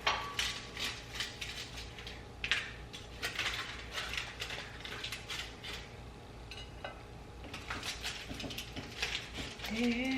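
Metal utensil clicking and scraping irregularly against cookware as French toast is cut in half and lifted out.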